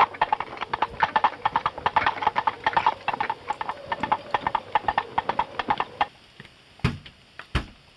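Quick, hard clacking footsteps of several people walking together on a paved path, stopping about six seconds in, followed by two heavy thumps.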